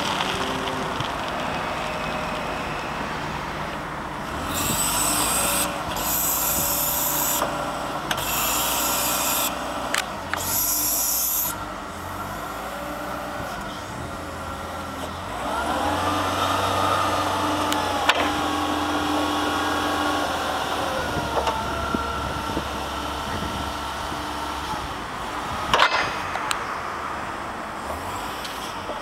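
Linde H25T LPG forklift running with its hydraulics in use: four short bursts of hiss as the forks are moved, then the engine revs up with a rising whine that holds for several seconds while the mast lifts. A single sharp clack near the end.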